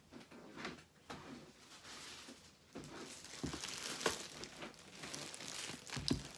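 A clear plastic bag crinkling as it is handled with a cardboard laptop box inside, getting busier from about three seconds in, with a few knocks from the box being moved.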